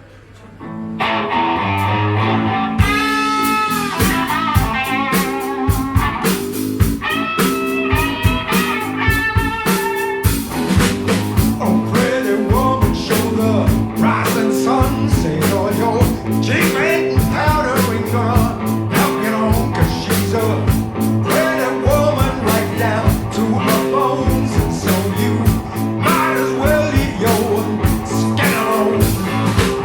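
A blues-rock band playing, with electric guitar over a bass line and a steady drum beat. The music starts about a second in, and singing comes in later.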